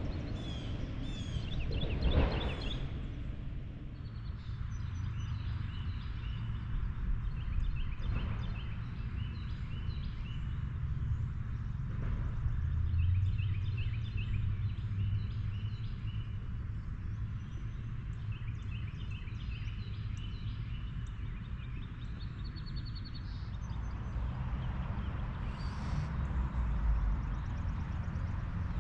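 Small birds chirping and trilling on and off in the trees, with a louder call about two seconds in, over a steady low rumble.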